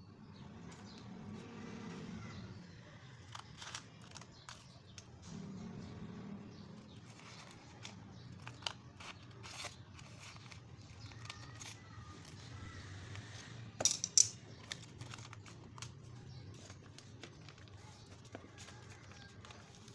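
A sheet of paper being folded and creased by hand: soft rustling with scattered light taps, and two sharper clicks about fourteen seconds in.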